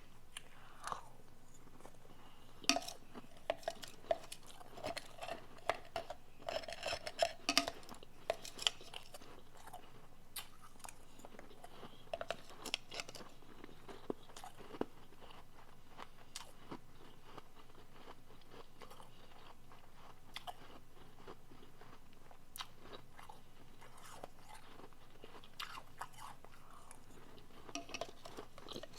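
Close-up chewing of soft refrozen powdery blender ice: bursts of short crisp crunches, densest in the first third, then sparser and fainter, picking up again near the end.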